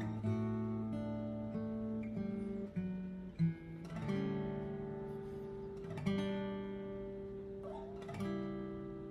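Acoustic guitar with newly fitted bone nut and saddle being sound-checked: slow plucked notes and chords, each left to ring out and fade before the next.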